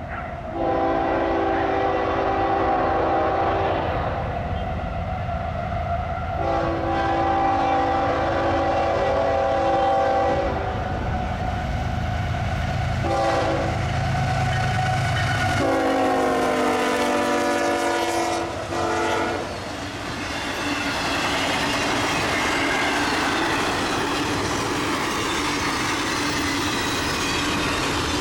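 A diesel locomotive's air horn sounds a chord in the grade-crossing pattern of long, long, short, long as a fast train approaches, over the low rumble of the engine. The last long blast drops in pitch as the locomotive passes, and there is a brief final toot. After that comes the steady rush and clickety-clack of the train's cars going by.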